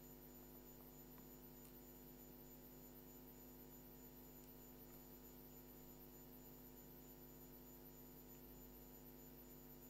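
Near silence with a faint, steady electrical mains hum and its overtones.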